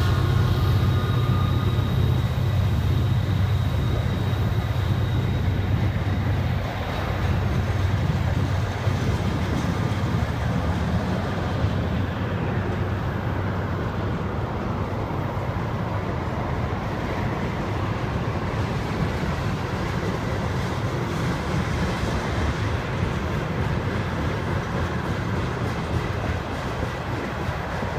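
Freight train of tank cars rolling past: a steady rumble and rattle of steel wheels on rail. A deep drone is strong in the first six seconds or so and then fades.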